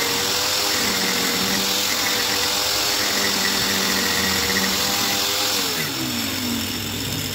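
Juicer motor driving a homemade mini lathe, running with a steady whine, then slowing down with a falling pitch about five and a half seconds in.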